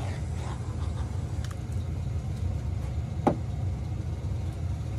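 A steady low hum, with a few faint small clicks and one sharp click about three seconds in.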